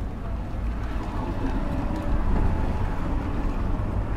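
Steady low rumble of a running vehicle engine, swelling slightly about two seconds in.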